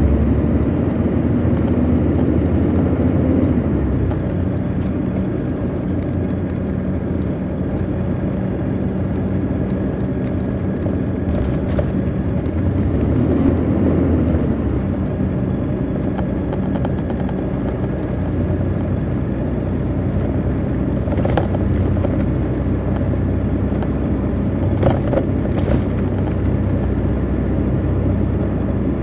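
Detroit Diesel Series 60 diesel engine of a 2002 MCI D4000 coach running at a steady pitch, heard from on board the bus, with a few brief clicks or rattles now and then.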